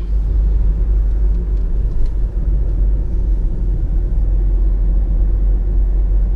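A car driving at steady speed, heard from inside the cabin: a continuous low rumble of road and engine noise.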